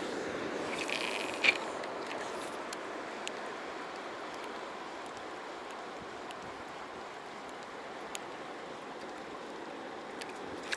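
River current flowing steadily, with a short hiss ending in a sharp click about a second and a half in, and a few faint ticks later.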